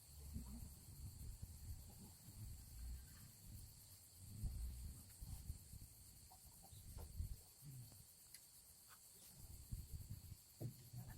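Faint, steady insect chirring, as of autumn crickets, with soft, irregular low bumps and rustles and a few small ticks.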